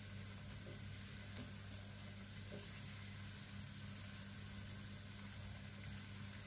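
Potato hash brown patties shallow-frying in a little oil in a non-stick pan, a faint steady sizzle, with one light tap about a second and a half in.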